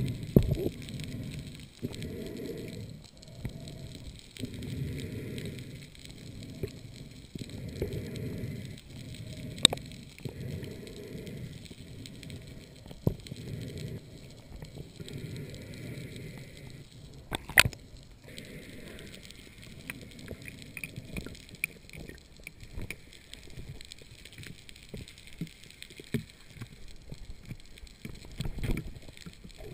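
Water noise picked up by an underwater camera housing as a diver swims, a low rushing that swells and fades every couple of seconds, with a few sharp clicks or knocks.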